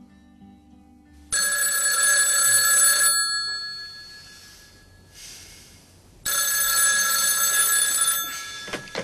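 Desk telephone bell ringing twice, each ring about two seconds long with a gap of about three seconds between them.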